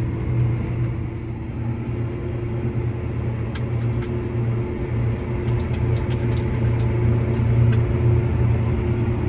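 Inside the cab of a John Deere 7R 310 tractor travelling at road speed: a steady low drone from its six-cylinder diesel engine and drivetrain, with a few faint clicks.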